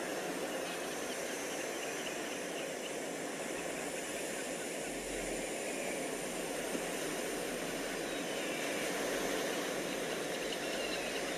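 Steady rushing outdoor noise at an even level, with a few faint short high sounds now and then.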